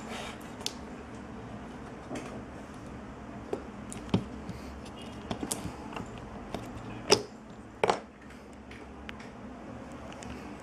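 Handling noise: scattered short clicks and knocks over a steady low hum. The loudest knock comes a little past seven seconds in, followed by a double one near eight seconds.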